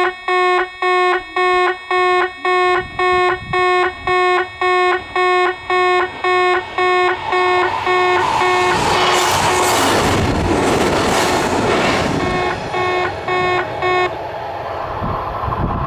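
Electronic bell of a Japanese railway level crossing ringing steadily, about two and a half chimes a second. About eight seconds in, the Kintetsu 'Blue Symphony' (16200 series) limited express rushes through for about four seconds. The bell stops about fourteen seconds in.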